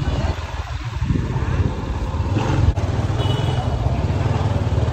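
Motorbike engine running as the bike rolls slowly along the street, a steady low rumble, with one sharp click a little past halfway.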